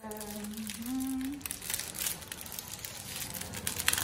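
Small plastic bags of diamond-painting drills crinkling and rustling as they are handled and opened, in irregular crackles. A short hummed voice tone, stepping up in pitch, comes at the start.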